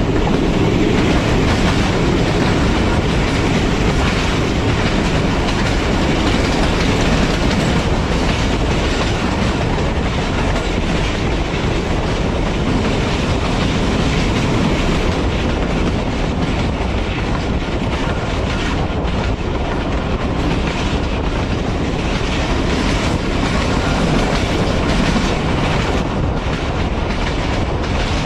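Passenger train running along the track: the steady noise of its coach wheels rolling on the rails.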